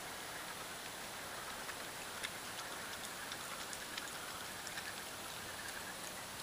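Raccoon chewing and crunching crackers: scattered small crisp clicks at an irregular pace, a sharper one about two seconds in, over a steady hiss.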